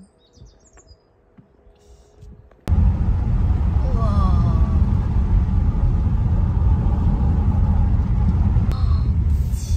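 Road and engine noise inside a moving car's cabin: a steady low rumble that starts abruptly a few seconds in, after a quiet opening.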